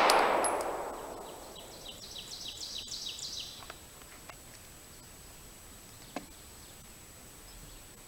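The echo of a pistol shot dying away over the first second, then a bird singing a quick run of short, high, falling chirps for about two seconds. A few faint clicks follow as the pistol goes back into its holster.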